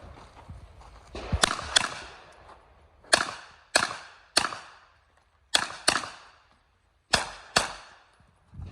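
Rifle shots fired in a quick string during a timed match stage: nine sharp cracks, some in fast pairs and some spaced singly, each with a short echo.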